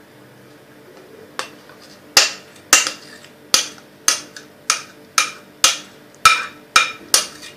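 A utensil knocking against a mixing bowl as cheesecake filling is emptied out of it: about a dozen sharp knocks, roughly two a second, starting a second or so in.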